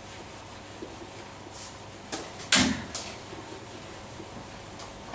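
Whiteboard duster wiping a whiteboard: faint rubbing strokes, with a sharp knock against the board about two and a half seconds in and a smaller one near the end.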